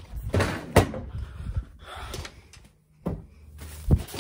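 Clattering knocks and rustling, with a sharp knock about a second in and two more near the end.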